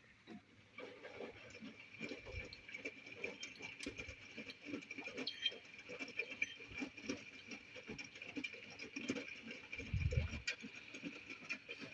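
Miele W423 front-loading washing machine running, with wet laundry tumbling and pattering in the drum as a stream of irregular soft knocks. A steady high tone runs underneath, and there is one deeper thud about ten seconds in.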